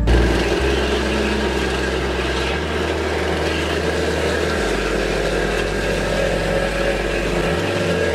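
Vehicle running: a steady rush of engine and road noise over a deep low drone.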